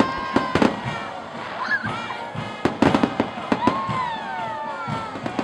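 Aerial fireworks display: shells bursting in repeated sharp bangs, with a rapid cluster of bangs about three seconds in.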